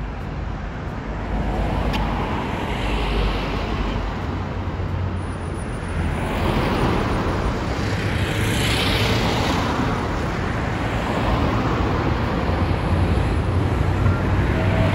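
Road traffic on a city street: cars and a small truck driving past close by over a low steady rumble, the loudest pass about eight or nine seconds in.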